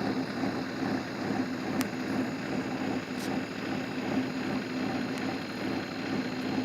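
Steady running noise of a car, a low even hum with a few faint clicks.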